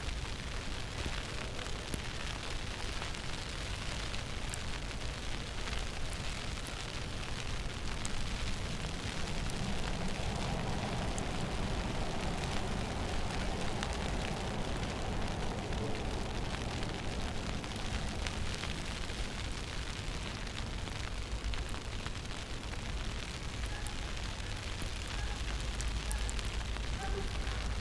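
Wind buffeting the microphone in a steady rumbling rush, with a swell of noisier street sound for several seconds midway.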